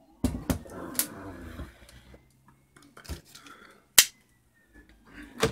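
Handling noise from 3D printer parts being worked by hand on a metal workbench: a few sharp clicks and knocks, the loudest about four seconds in.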